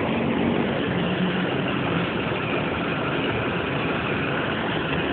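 Steady vehicle engine noise, an even rumble with a faint low hum and no change in pace.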